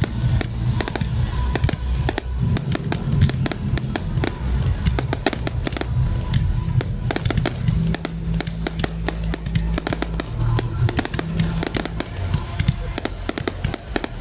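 Fireworks display going off continuously: a dense run of rapid sharp cracks and bangs over a low rumble.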